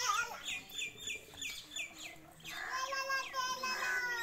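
Small birds chirping in quick repeated down-sweeping notes, about three a second, then a rooster crowing from about two and a half seconds in, one long call.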